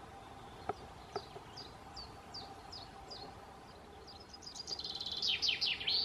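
A small bird sings a run of high, down-slurred notes, two or three a second, then a faster and louder run near the end. Two short knocks sound about a second in.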